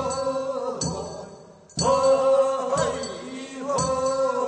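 Korean funeral bier song (sangyeosori), a voice holding long, steady sung notes, with a hand bell struck about once a second to keep the beat.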